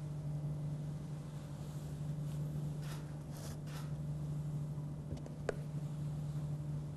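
Quiet room tone: a steady low hum, with a few faint rustles near the middle and a single light click about two thirds of the way through.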